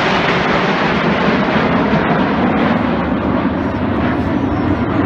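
Red Arrows BAE Hawk T1 jets flying overhead: a loud, steady rushing jet-engine noise, with its weight shifting lower towards the end.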